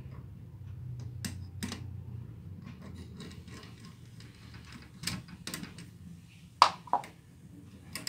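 Screwdriver clicking and scraping against the metal terminal screws of a duplex wall outlet, with wires and the outlet's metal strap knocking in the hand: a scatter of small clicks, with two sharper clicks close together late on.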